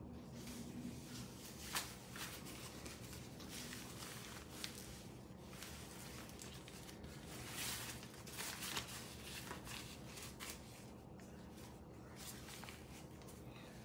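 Rustling of a hair-styling cape's fabric as it is shaken out and turned over in the hands, with a few sharp clicks and a louder run of rustling around the middle.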